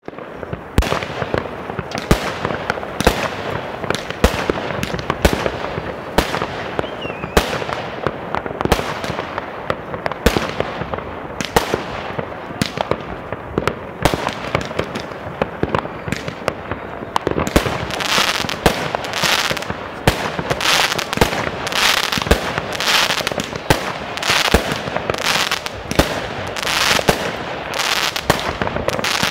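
New Year's fireworks rockets bursting: a dense run of bangs over a continuous crackle, with a short falling whistle about seven seconds in. In the second half the bangs come more evenly, about one a second, each with a bright crackle.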